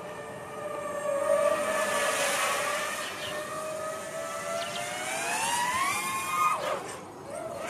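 DJI FPV drone's motors and propellers whining loudly in flight. The pitch holds, then climbs about five seconds in and drops sharply about a second and a half later.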